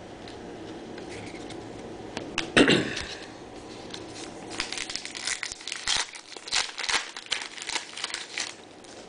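A baseball card pack wrapper being torn open and crinkled, a quick run of crackling rustles through the second half. There is a louder bump about two and a half seconds in.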